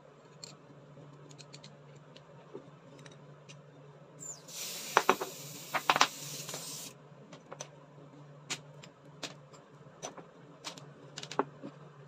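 Small metal clicks and clinks as brass fittings of an AC low-pressure switch are handled and threaded together, with a hiss of pressurised air escaping from the fitting for about two and a half seconds around the middle as the switch is connected to the charged manifold hose.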